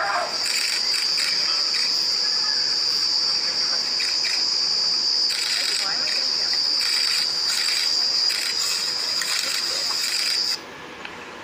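Steady high-pitched buzzing of forest insects, which cuts off suddenly near the end.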